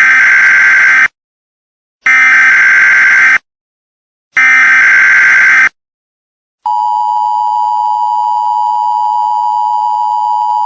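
Emergency Alert System broadcast tones. First come three SAME header data bursts, harsh buzzy warbles a little over a second each and evenly spaced. About six and a half seconds in, the steady two-tone EAS attention signal starts, slightly quieter than the bursts.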